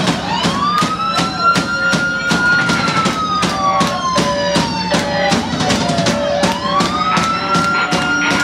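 Live band playing: a steady drum beat of about three hits a second over bass and guitar. A siren-like tone sweeps up, then slowly falls, twice.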